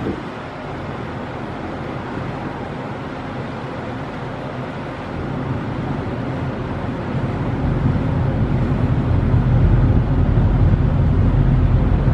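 Steady running noise aboard a moving ferry: a low engine rumble under wind and rushing water, the rumble growing louder about halfway through.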